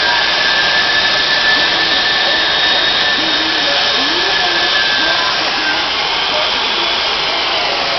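Phantom F4 jet engine mounted on a Peterbilt 359 truck running: a loud, steady roar with a high whine over it that fades about two-thirds of the way through.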